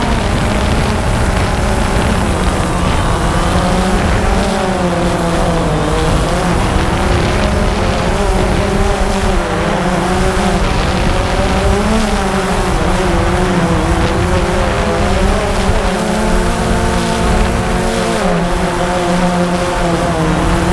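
Quadcopter drone's electric motors and propellers humming steadily, picked up by the drone's own onboard camera, the pitch wavering gently up and down as it adjusts its flight. Wind rumbles on the microphone underneath.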